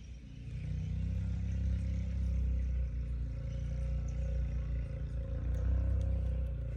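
An engine or motor running steadily at a constant pitch, starting about half a second in.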